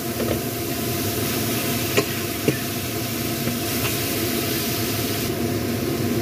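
Water spinach hissing and sizzling in a hot, steaming wok as it is stirred with a metal spatula, which knocks sharply against the wok twice about two seconds in.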